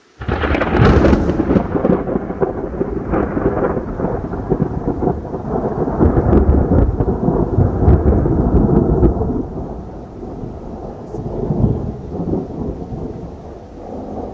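A close thunderclap: a sudden sharp crack right after the start, then a long rolling rumble that fades over about ten seconds. The thunder follows the lightning flash at once, so the strike is very near.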